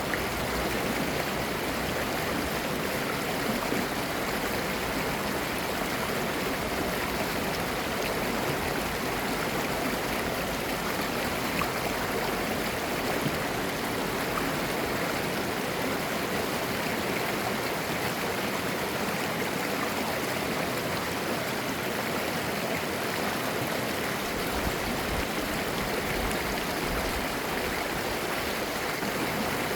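Mountain stream water flowing steadily over rocks, a continuous babbling rush.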